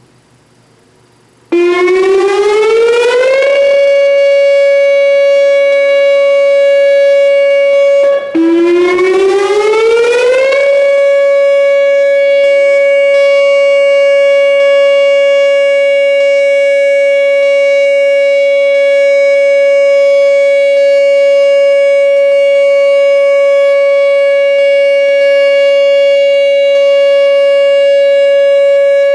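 Whelen WPS-2910 electronic warning siren sounding its steady Alert tone, loud. It comes in about a second and a half in and rises to a fixed pitch. It cuts out briefly about seven seconds later, then rises again and holds the same steady pitch.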